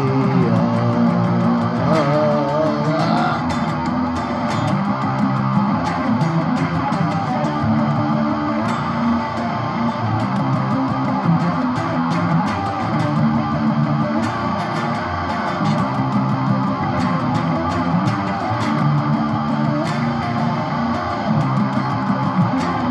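Instrumental break in a guitar-led song, with plucked and strummed guitars over bass. The last sung word trails off in the first few seconds.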